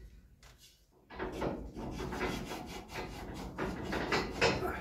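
Irregular scraping and rubbing, starting about a second in, as a bolt is worked into place by hand.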